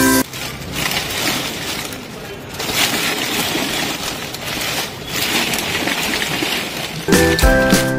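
Crisp, sun-dried semolina (rava vadiyalu) chips being stirred and lifted by hand in a steel bowl: a dense, irregular crackling rustle of brittle wafers rubbing and clinking against one another.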